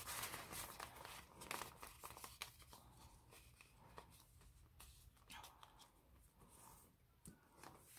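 Faint rustling and crinkling of a paper bill and a clear plastic zipper pouch being handled and closed, mostly in the first few seconds, then near silence.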